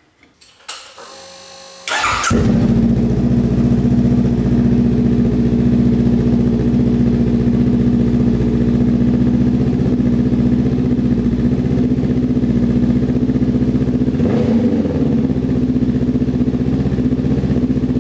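Honda CBR500R's parallel-twin engine cranked on the electric starter for about a second, catching about two seconds in, then idling steadily and loudly through an aftermarket KO Lightning slip-on muffler with its dB killer removed. The idle wavers briefly about fourteen seconds in.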